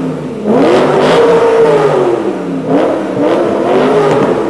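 BMW E93 M3's 4.0-litre V8 free-revving through a Meisterschaft GT exhaust with SR pipes. There is one long rev about half a second in that climbs and falls back, then two quicker blips in the second half.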